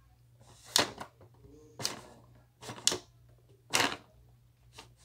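Toy train engine and tender clacking along toy track as it is pushed by hand: a series of sharp clicks and knocks, about one a second.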